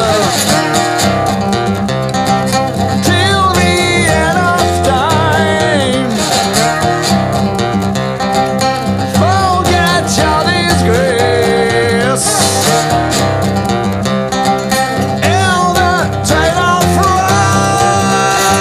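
Instrumental break of a blues song: bottleneck slide guitar plays a lead of notes that glide up and down over a steady low accompaniment.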